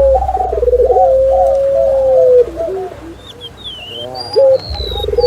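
Doves cooing from a dove lure track: a run of short rolling coos, then one long, even coo held for over a second, a quieter pause with faint high chirps of small birds, and more rolling coos near the end.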